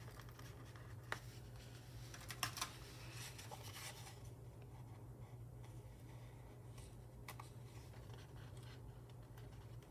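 Faint scratching and a few light ticks from paper planner stickers being pressed down and trimmed with a craft knife on the page, over a low steady hum.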